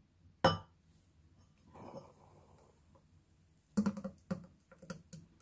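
Smoothie poured from a blender jar into a glass, with glass and jar clinking: a sharp clink about half a second in, a soft pour around two seconds in, then a quick run of taps and knocks over the last second and a half.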